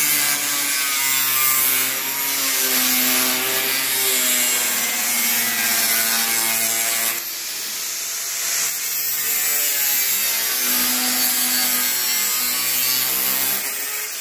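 Angle grinder with a thin cutting disc slicing through sheet metal: a steady motor whine over the harsh hiss of the disc in the metal.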